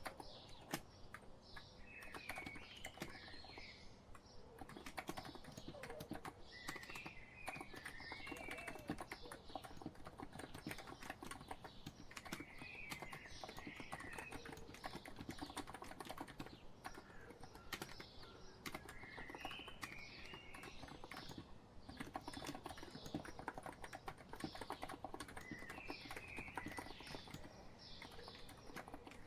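Continuous, irregular typing on a COX Empress electrostatic-capacitive keyboard, a soft rapid patter of keystrokes. Behind it, a bird sings a short chirping phrase that recurs every five or six seconds.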